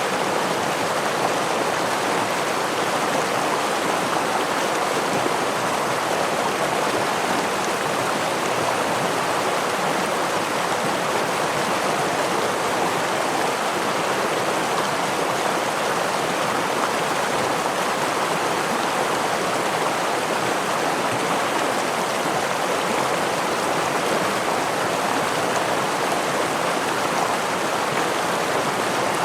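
Small river or stream rushing steadily over rocks with a gentle waterfall, an even, unbroken splashing rush.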